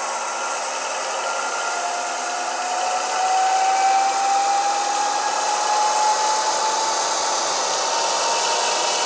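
Sound-decoder recording of a BR216 diesel-hydraulic locomotive engine working under power, played through the model's small onboard speaker. A thin whine rises slowly in pitch over the engine note, and the sound grows louder about three seconds in as the model passes.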